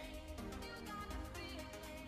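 Quiet background music with held notes that change every so often.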